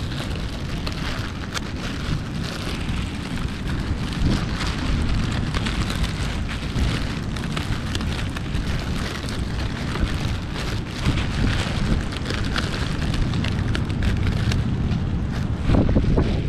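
Wind buffeting the microphone in a steady low rumble, with crackling rustles throughout from the nylon paraglider canopy and lines being handled.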